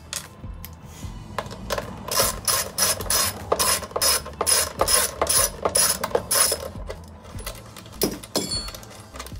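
Ratchet wrench with an 11 mm socket clicking as it loosens bolts, in a run of quick strokes about three a second. A couple of separate knocks come near the end.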